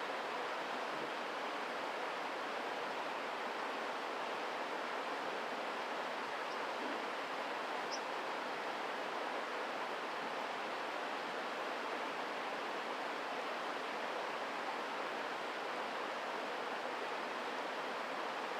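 Steady rushing of a mountain stream, an even wash of water noise with no change in level. Two faint, very short high notes come through it about six and a half and eight seconds in.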